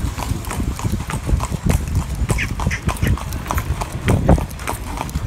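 A harnessed horse's hooves clip-clopping on a paved street as it pulls a carriage. The strikes come in a quick irregular rhythm over a steady low rumble.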